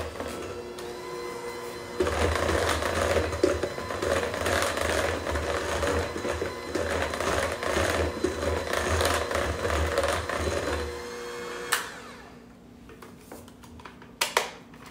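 Electric hand mixer running with its beaters in thick cake batter, a steady motor whine that gets louder about two seconds in. It switches off about eleven seconds in with a click. A couple of sharp knocks come near the end.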